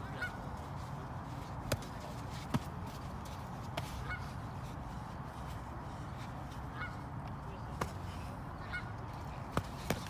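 Boxing gloves smacking in sparring: sharp slaps scattered through, two close together near the end, over a steady low hum, with short honking calls now and then.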